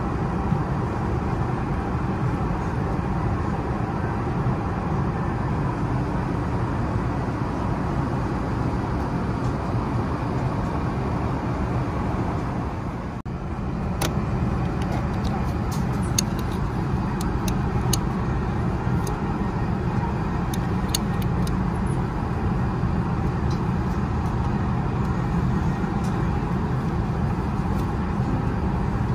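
Steady cabin noise of an Airbus A380 airliner, a constant rumble of engines and airflow. It dips briefly about halfway through, and a few light clicks follow in the second half.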